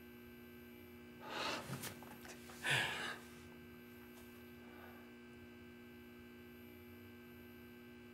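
Steady low hum with two short breathy sounds from a person, about a second and two and a half seconds in, and a fainter one about halfway through.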